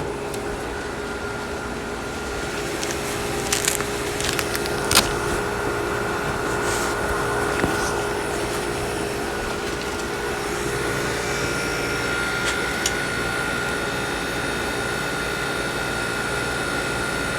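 1973 Gibson 8000 BTU window air conditioner running: a steady hum of compressor and fan with a held higher tone over it. A few short clicks come at about four and five seconds in.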